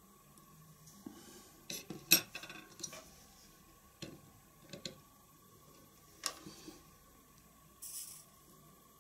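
Small clinks and taps of a glass rod and metal tools against a glass flask and a wooden workbench, as soldering acid is dabbed on and tools are set down and picked up for tinning. The taps are scattered, the loudest about two seconds in, with a short hiss near the end.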